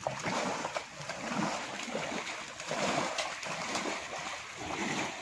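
Pond water sloshing and splashing irregularly as people wade through it.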